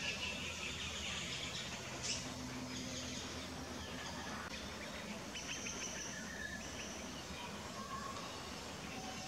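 Steady outdoor background noise with a few faint, short bird calls scattered through it, and a single sharp tick about two seconds in.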